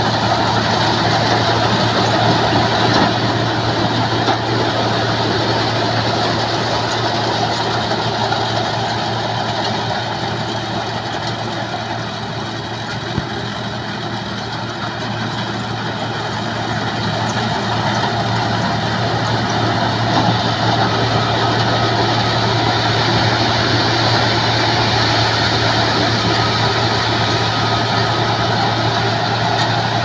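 Compact rice combine harvester running steadily while cutting rice, its engine and threshing machinery making a continuous mechanical drone over a constant low hum. It drops a little in loudness midway as the machine moves off, then grows louder again as it comes closer.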